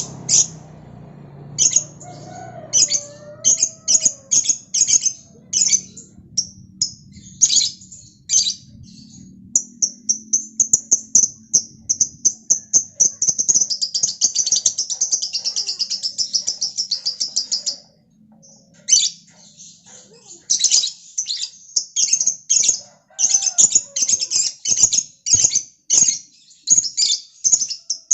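Lovebird singing in rapid, high-pitched chattering chirps, breaking about ten seconds in into one long, fast, unbroken trill of some eight seconds before returning to separate chirps.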